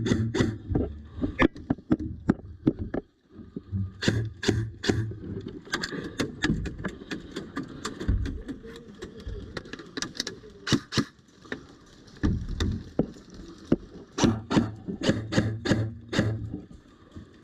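Airsoft guns firing: sharp cracks in scattered single shots and short quick strings, coming in several clusters with quieter gaps between.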